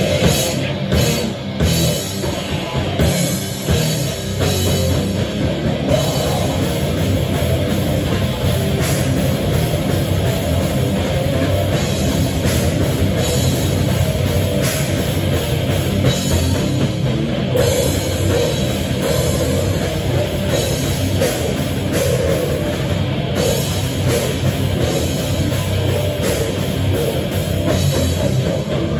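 Heavy metal band playing live: distorted electric guitars, bass guitar and a drum kit, loud and continuous.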